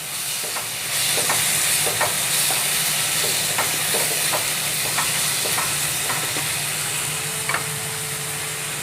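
Chopped tomatoes, onions and ginger-garlic paste sizzling in hot oil in a pan while a spatula stirs them, knocking and scraping against the pan about twice a second over a steady frying hiss.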